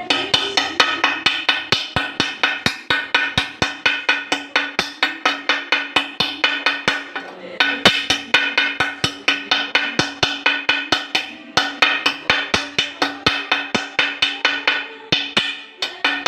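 Rapid, steady tapping on a ceramic tile, about four to five sharp taps a second with a couple of brief pauses, as a circle is chipped out along a marked line to open a hole for a water pipe.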